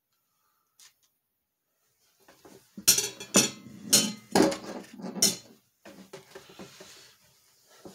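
Metal butter knife knocking and clinking against a ceramic plate while margarine is sliced and the knife is laid down: about five sharp knocks over a couple of seconds, then softer clatter.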